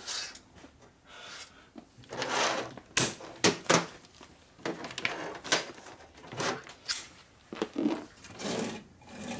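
Tools and metal engine parts clinking and knocking as they are handled and set down on a metal workbench, with a cluster of sharp knocks about three to four seconds in.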